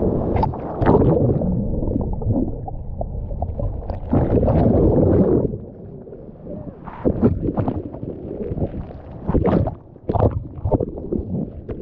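Surf washing over and around a camera held at the water's surface: a muffled rush of whitewater and sloshing, louder about four seconds in, then a run of sharp splashes in the second half.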